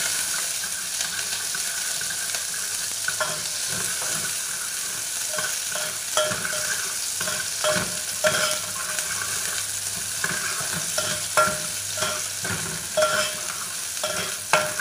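Chopped shallots and garlic sizzling in hot oil in a pan as they are sautéed, with a steady hiss. A utensil knocks against the pan about a dozen times at irregular intervals as they are stirred, each knock ringing briefly.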